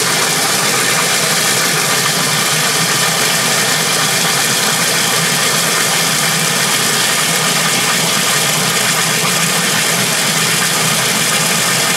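Water from a garden-hose spray nozzle pouring steadily into a top-load washer's tub as it fills.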